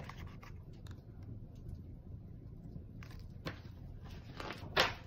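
A hardcover picture book being handled and its page turned: a few soft rustles about three seconds in and a brief louder rustle near the end, over a low steady room hum.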